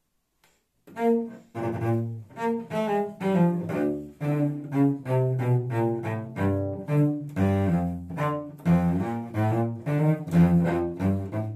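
Solo cello, bowed, playing the cat character's groovy theme in short, separated notes. It starts about a second in.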